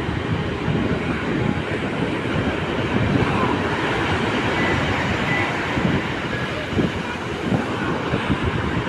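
Wind buffeting the microphone over a steady rush of sea surf, a rough, uneven rumble with gusts.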